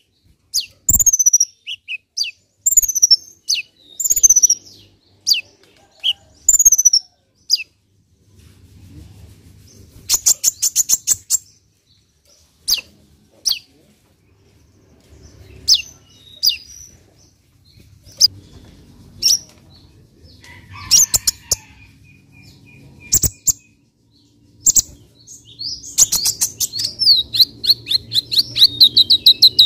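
Male kolibri ninja (Van Hasselt's sunbird) singing: sharp, high chirps sweeping downward about once a second, then scattered single chirps and a short rapid trill. Near the end comes a long, fast trill that slides gradually lower in pitch.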